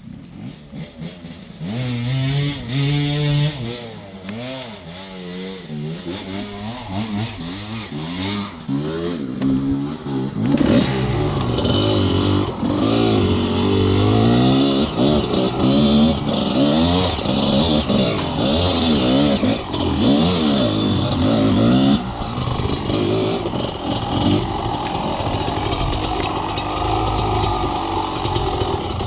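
Enduro dirt bike engine revving hard and unevenly, its pitch climbing and dropping every second or so as the throttle is worked on and off. It is quiet for about the first second, then the engine comes up.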